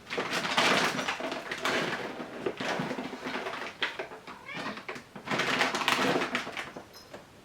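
A hungry domestic cat meowing once, briefly, amid two stretches of rustling and clattering as its food is got ready.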